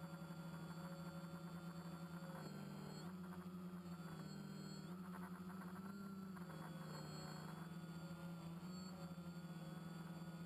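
Small multirotor drone's electric motors and propellers humming steadily as heard from the aircraft itself, the pitch stepping up and down a few times as it manoeuvres.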